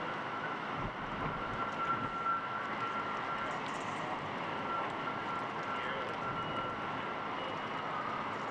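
Landing airplane's engines running with a steady high whine over a broad rushing noise. Low gusts of wind hit the microphone between about one and two and a half seconds in.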